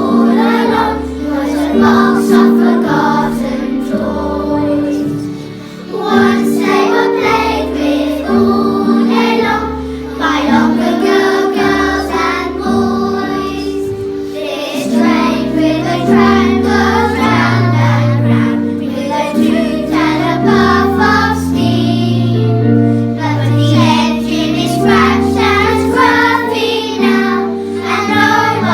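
A group of children singing a song together over an instrumental backing of sustained chords and a bass line.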